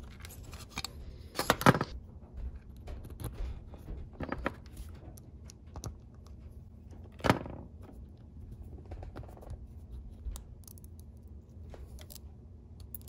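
Small screwdriver unscrewing the body of a Tri-Ang Davy Crockett model locomotive, with the plastic shell and metal chassis being handled: scattered clicks, taps and light scrapes, including a sharper click about a second and a half in and another about seven seconds in.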